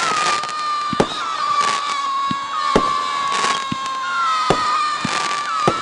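T-Sky Phoenix Return 500-gram firework cake firing shot after shot: each shell climbs with a long, steady screaming whistle, and the whistles overlap without a break. Sharp bangs from the shots come about every second, with crackling hiss between them.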